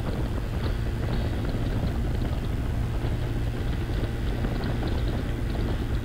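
Yamaha Vixion's single-cylinder motorcycle engine running steadily while riding in heavy rain, with wind and rain noise. It is recorded by a GoPro whose microphone opening is covered against the rain.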